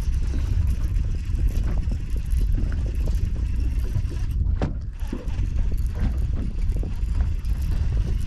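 Wind buffeting the microphone on an open boat: a loud, uneven low rumble that rises and falls with the gusts.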